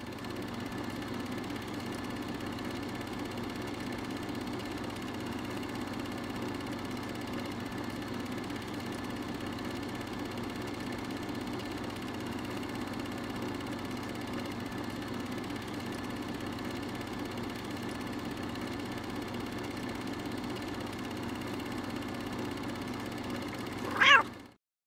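A domestic cat purring steadily, then one short meow near the end, louder than the purr.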